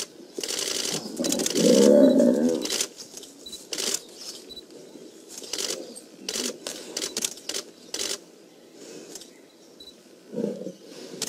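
A lion snarling loudly for a couple of seconds while under attack by a Cape buffalo, with a shorter snarl again near the end. Sharp clicks are scattered throughout.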